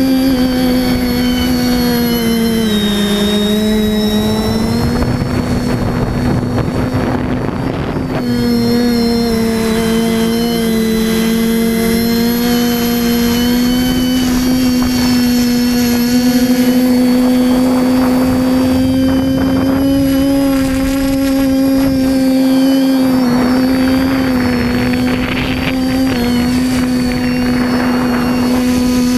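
TBS Discovery Pro quadcopter's brushless motors and propellers humming steadily in flight, heard from the camera on the drone. The pitch dips a few seconds in, and gusts of wind buffet the microphone at times.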